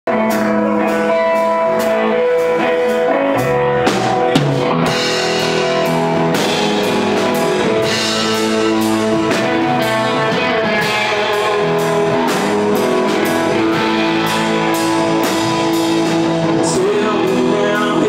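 Live rock band playing: two electric guitars, bass guitar and drum kit on a steady beat. A man's singing voice comes in near the end.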